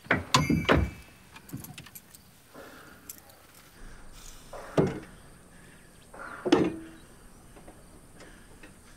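A metallic jingle and a quick run of clicks about a second in, then two dull thumps a couple of seconds apart, from someone handling things inside a car.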